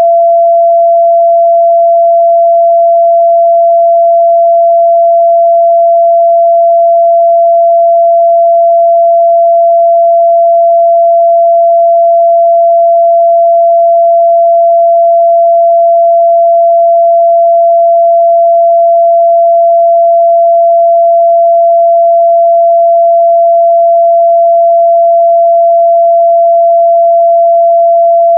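A steady 678 Hz sine-wave test tone, one pure pitch held at a constant level.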